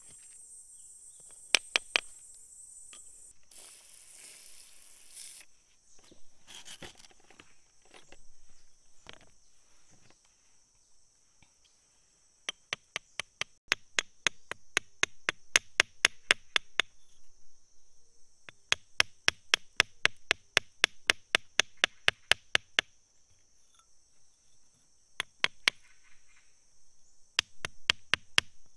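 A metal pick chipping at stone around an embedded crystal: runs of sharp taps, about four a second, in three bursts over the second half. Insects keep up a steady high chirring throughout.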